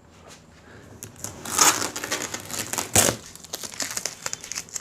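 Packaging being opened and handled: rustling and crinkling that starts about a second and a half in, with one sharp crack about three seconds in.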